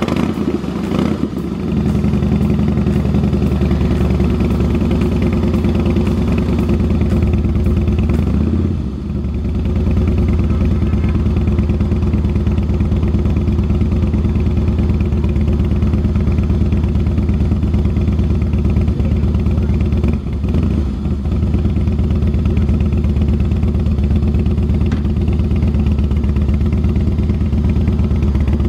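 Motorcycle engine, just started, running steadily, with a brief dip about nine seconds in.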